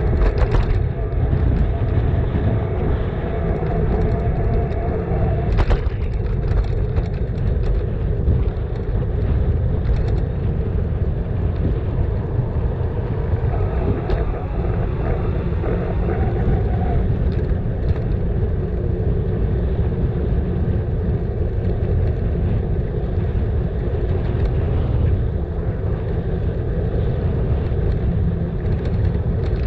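Steady wind and road rumble from riding a bicycle, with a few brief clicks or rattles along the way.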